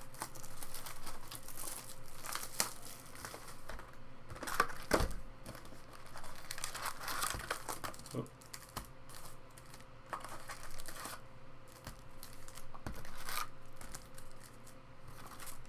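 Foil trading-card pack wrappers (Topps Chrome) crinkling and tearing open as packs are handled, in irregular rustles and crackles.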